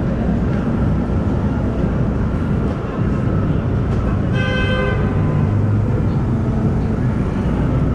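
Steady rumble of busy city street traffic, with a vehicle horn honking once, briefly, about four and a half seconds in.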